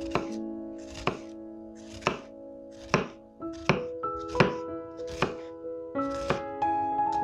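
A kitchen knife cutting through an onion, with about nine sharp chops spaced roughly a second apart and coming a little faster near the middle, over background music.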